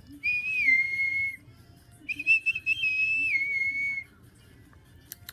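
A person whistling two long notes. The first rises slightly and is held; the second steps up, holds, then drops to a lower held note.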